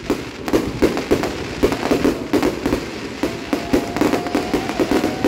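Aerial fireworks bursting overhead in a fast, dense run of bangs and crackles, several a second.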